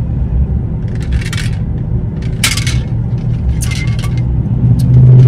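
Steady low rumble of a car cabin while driving, broken by a few short rattling, scraping sounds about a second apart.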